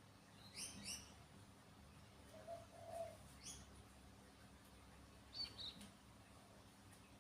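Faint bird chirps over a quiet yard. A quick pair of rising chirps comes about half a second in, another around three and a half seconds, and a short double note a little after five seconds. A low soft call sounds around two and a half seconds in.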